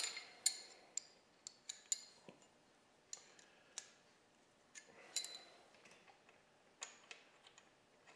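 Steel wrenches clinking as they are handled on the Model T Ford engine while its manifold studs are set with two locked nuts: an irregular string of sharp metallic clicks and clinks, the loudest right at the start.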